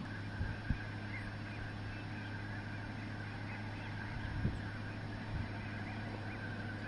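A large massed flock of geese and ducks calling together, a continuous chorus of overlapping honks. A few brief low bumps sound over it.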